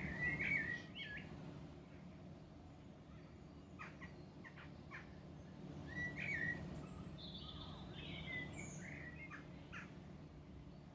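Garden birds chirping: short scattered calls, in clusters near the start, around the middle and in the second half, over a steady low background hum.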